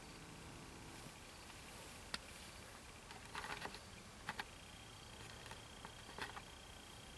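Faint, quiet background with a few scattered soft clicks and rustles. A faint steady high-pitched tone comes in about halfway through.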